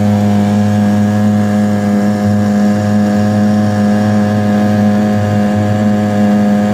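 Boat engine running at a steady speed, a constant low drone with an even hum.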